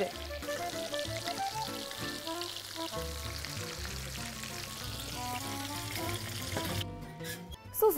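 Hot oil sizzling steadily in a pan of breaded, fried chicken cutlets after the burner is switched off, with light background music; the sizzle cuts off suddenly near the end.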